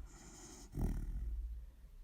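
Pet dog snoring in her sleep: a soft hissing breath, then a low snore about three-quarters of a second in that fades away, one snore per breath.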